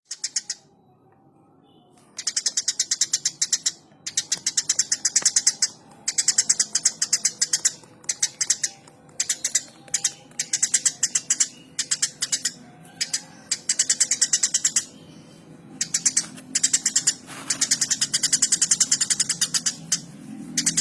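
Eurasian tree sparrow chirping in full voice: rapid runs of sharp, high chirps, about ten a second, in bouts of a second or two with short breaks between them.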